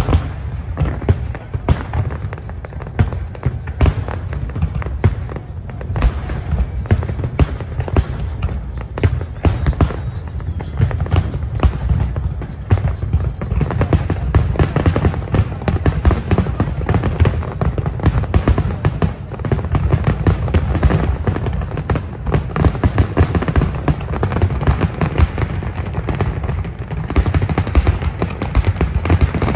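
Aerial firework shells bursting in a dense, continuous barrage: many sharp bangs a second over a deep rumble. The barrage grows fuller about halfway through.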